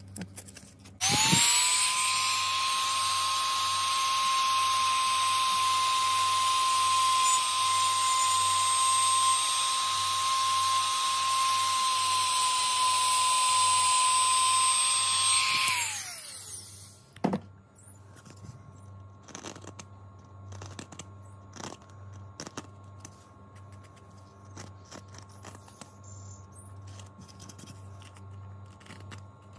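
Handheld cordless rotary tool spinning up, running at a steady high-pitched whine for about fifteen seconds with its bit against a foam helmet part, then winding down. A click and light handling follow.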